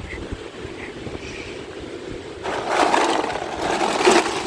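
Wind buffeting the microphone with a steady low rumble. A louder stretch of rushing, crackly noise starts about two and a half seconds in.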